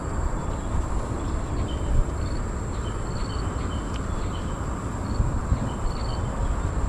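Outdoor ambience: a steady low rumble with short, high chirps repeating at two pitches about every half second, over a thin steady high whine.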